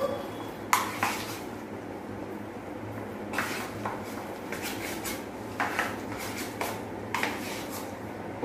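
Hands mixing a thick, wet paste of chopped vegetables, semolina and cream in a bowl. Scattered light knocks and clinks come from fingers and the paste hitting the bowl.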